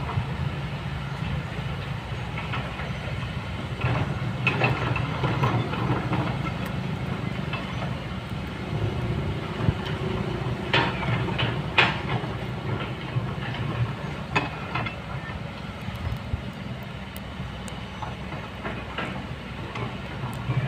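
Kobelco excavator's diesel engine running steadily, with several sharp knocks and clacks of stone and steel as the machine works the rocks.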